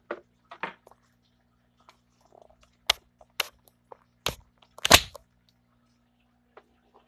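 A handful of sharp clicks and knocks from plastic dollhouse toys and the camera being handled, the loudest about five seconds in, over a faint steady electrical hum.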